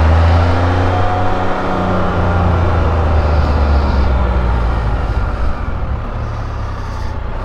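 Can-Am Spyder RT Limited's Rotax 1330 three-cylinder engine running under way, a steady low drone whose pitch eases down over the first few seconds, over wind and road noise.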